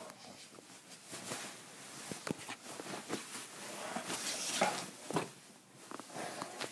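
Irish setter thrashing about on bed blankets: irregular rustling of fabric with scattered soft thumps and clicks, loudest about four to five seconds in.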